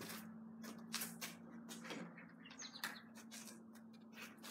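Faint clicks and taps of small objects being handled over a steady low hum, with a brief run of high chirps about two and a half seconds in.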